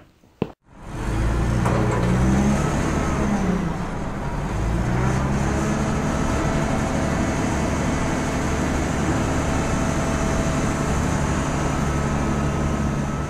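Motor vehicle engine coming in about a second in, revving up and down twice, then running steadily.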